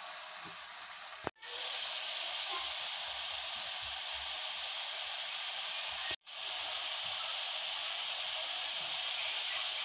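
Raw chicken pieces frying in hot oil in a pan, a steady sizzle that breaks off for an instant twice.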